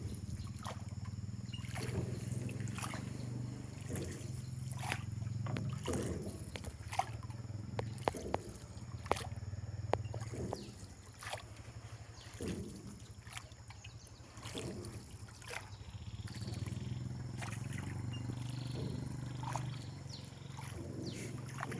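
Water trickling and splashing around a small rowboat as it is rowed, with scattered short bird calls and a steady low hum.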